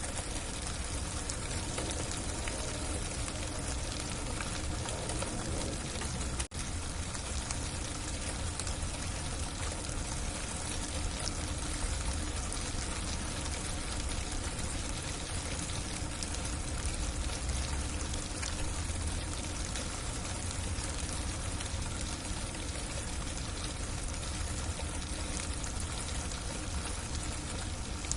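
Heavy freezing rain falling in a steady hiss with a low rumble underneath, broken once by a momentary dropout about six seconds in.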